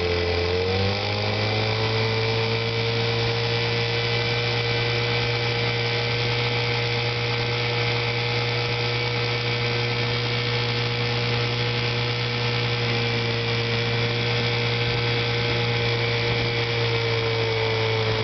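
1972 Evinrude 6 hp Fisherman two-cylinder two-stroke outboard motor running under way at high throttle. Its pitch climbs in the first second as the throttle opens, then holds a steady whine. The motor has been freshly tuned up, with new coils, condensers and points and an overhauled carburetor.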